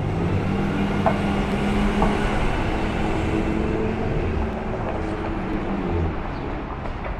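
Loud street construction and traffic noise: a low engine rumble with several steady humming tones, and sharp knocks about one and two seconds in.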